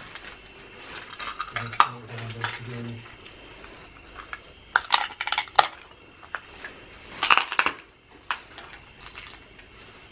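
Footsteps crunching and clinking over broken glass and debris, a scatter of sharp clicks, with two louder clattering clusters about five and seven seconds in.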